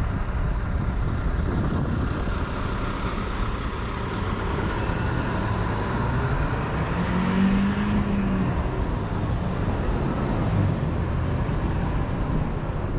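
Street traffic: cars and trucks passing on a busy city road, a continuous road-noise hum. Past the middle, one passing vehicle's engine note rises and falls.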